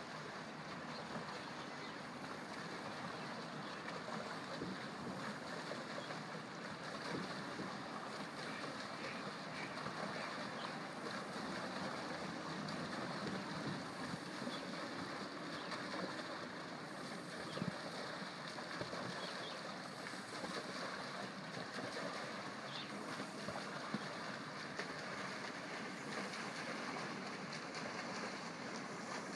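Steady rush and splash of moving water, with wind buffeting the microphone.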